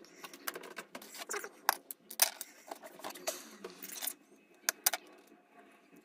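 Irregular clicks, taps and light rattles of small hard parts, plastic and metal, being handled and set down while a drill is worked on by hand.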